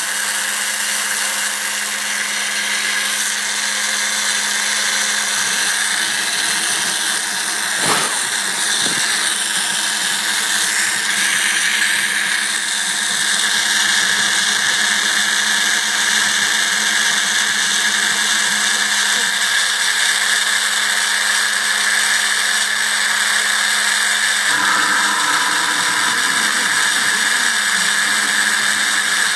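CNC router spindle running steadily as its small end mill engraves letters into painted wood. A single sharp knock comes about eight seconds in.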